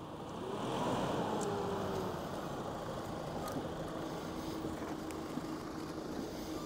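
Chevrolet Colorado ZR2 AEV Bison pickup's engine running as the truck crawls by off-road. It swells and falls in pitch about a second in, then settles to a steady hum.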